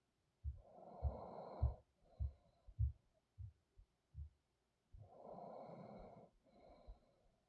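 A sleeping person breathing heavily: two long, noisy breaths about four seconds apart, each followed by a shorter, softer one, with a faint high whistle in them. Soft low thumps come irregularly in between.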